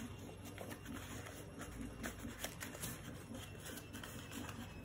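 Faint rustling and light crinkling of a small paper box being folded in by hand along its scored lines, with a few small clicks and taps of the paper scattered through.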